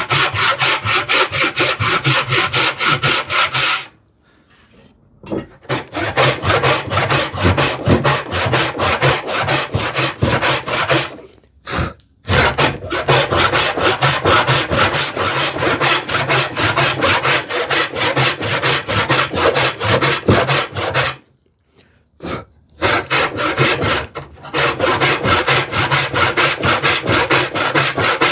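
Freshly sharpened tenon saw cutting a tenon cheek in wood by hand: quick, even back-and-forth strokes, with three brief pauses.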